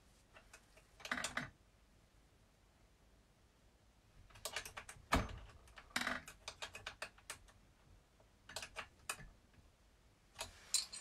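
Irregular clusters of light metallic clicks and taps from a small wrench on a hex-head screw, as the model car's front C-hub is loosened and shifted to set the toe-in.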